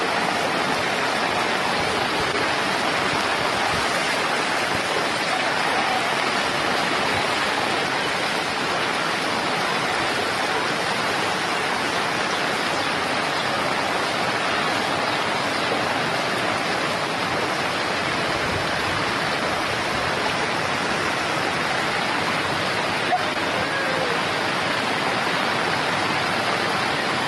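Steady rush of muddy floodwater running fast across a road and pouring over its edge, an even continuous water noise.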